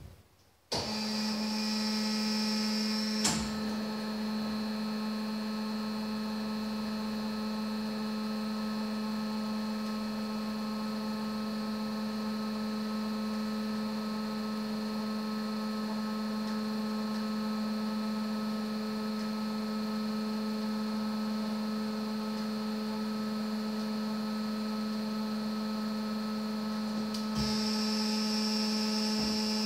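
A steady electric hum with several higher tones above it. It switches on abruptly under a second in. There is a sharp click about three seconds in, and a higher hiss joins near the end.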